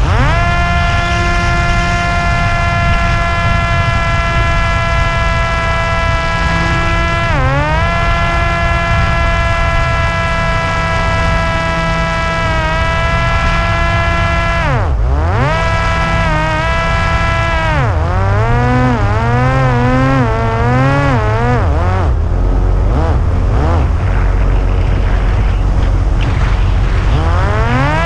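Parrot Disco's electric pusher motor and propeller whining steadily in flight, over a low rush of wind on the onboard microphone. The pitch drops sharply about seven seconds in, again around fifteen and eighteen seconds as the throttle comes off, then wavers up and down and climbs near the end.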